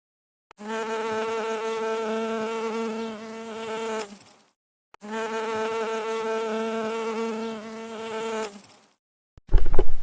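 Insect buzzing: a steady, even drone of wings, played twice, each time for about three and a half seconds. A louder, low sound starts just before the end.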